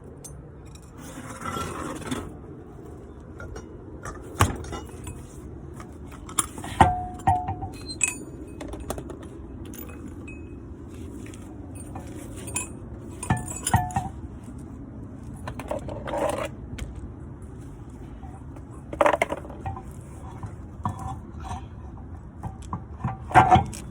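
Metal tools and car parts clinking and knocking in scattered short knocks, over a steady low background hum.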